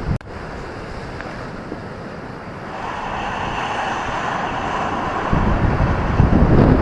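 Ocean waves surging and washing onto a beach, a wave building from about three seconds in, with heavy wind buffeting the microphone in low gusts that grow louder near the end.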